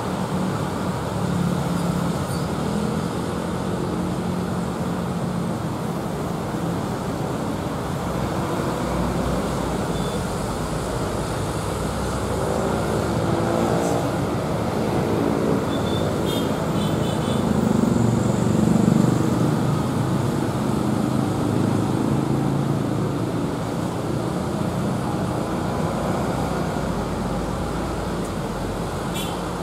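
Steady road traffic noise with vehicle engines passing. One engine's pitch rises and falls about halfway through, and the noise swells loudest a few seconds later.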